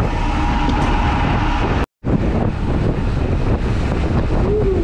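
Strong wind buffeting the microphone, over the steady running noise of a fishing boat and waves in stormy weather. The sound drops out for a split second about two seconds in.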